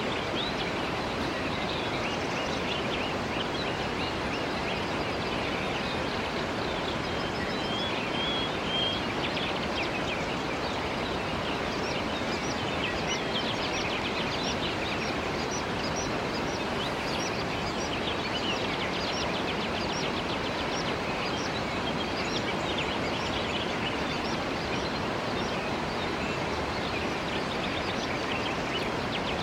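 Mountain waterfall rushing steadily, with short high bird chirps over it, more of them in the second half.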